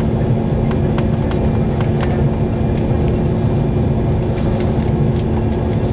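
Steady drone of a moving bus, heard from inside, with scattered light rattles and clicks.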